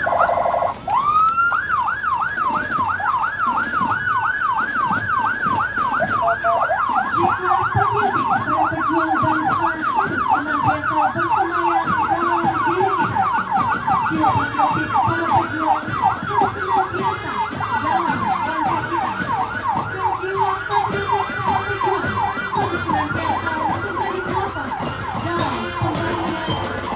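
Police car siren on the yelp setting: after a rising wind-up about a second in, it warbles up and down several times a second without a break.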